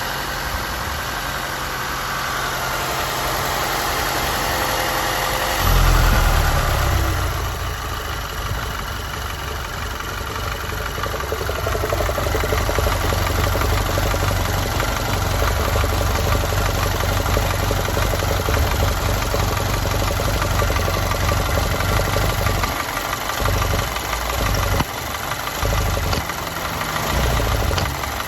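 Audi 1.8 TFSI turbocharged four-cylinder engine idling roughly during an oil filler cap test, a common check for a failing PCV valve. About six seconds in, the sound changes abruptly to a louder, deeper hum, which breaks up on and off near the end.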